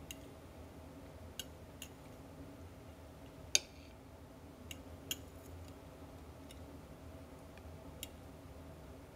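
Metal fork clicking against a plate as it picks up pasta: about nine light, scattered clicks, one louder about three and a half seconds in, over a faint steady hum.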